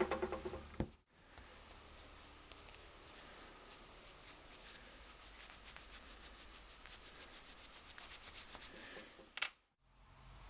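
Faint, quick, rhythmic rubbing strokes of hand work on a workpiece, in a steady run of many strokes.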